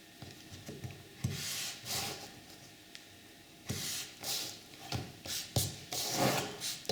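Pen scratching on a cardboard template and the card rubbing as lines are marked out, in a series of short soft strokes with pauses between.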